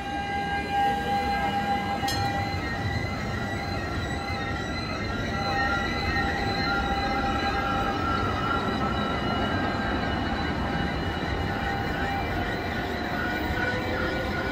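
Two articulated trams passing one after the other on street track, running with a steady high whine of several tones over a low rumble.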